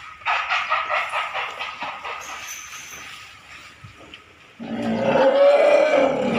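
Asian elephants calling. A rapid pulsing call fades over the first two seconds or so. Then, about four and a half seconds in, a loud, long, low call with a strong pitch begins.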